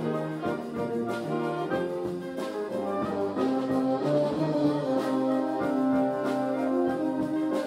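Wind band playing, brass carrying held chords with trombones and trumpets prominent, over occasional drum strokes.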